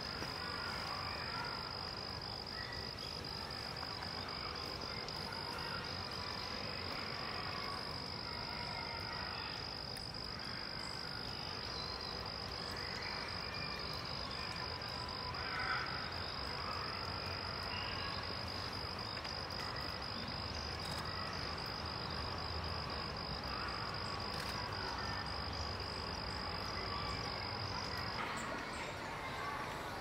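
A continuous high-pitched insect trill, held on one pitch with a fine flutter, that stops near the end. There is one brief louder sound about halfway through.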